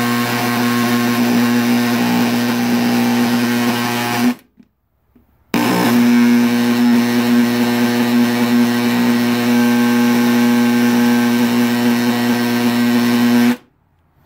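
A handheld power tool buzzing steadily at one fixed pitch, held against a padlock to vibrate its mechanism so it will turn. It runs about four seconds, stops for about a second, then runs about eight seconds more and cuts off sharply.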